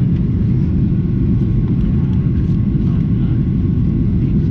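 Steady low rumble of cabin noise inside a Boeing 737-800 airliner, with a few faint papery rustles over it.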